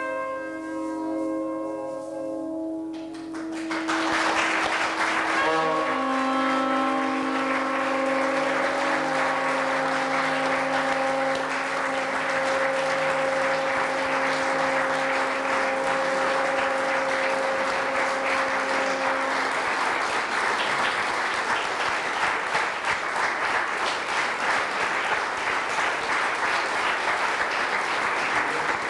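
A held chord from wind instruments ends about three seconds in, and an audience breaks into steady applause. Sustained instrument notes carry on beneath the clapping, dying away about two-thirds of the way through.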